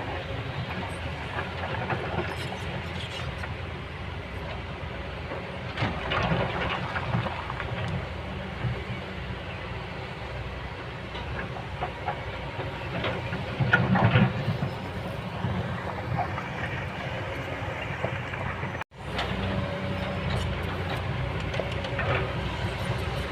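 Kobelco hydraulic excavator's diesel engine running steadily under load, with intermittent clanks and scraping from the working bucket, loudest about a third and two thirds of the way in. The sound drops out for an instant near the end, then the engine resumes.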